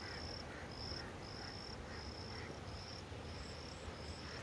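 An insect, cricket-like, calling in a steady run of short high chirps, about two a second, over a low steady rumble.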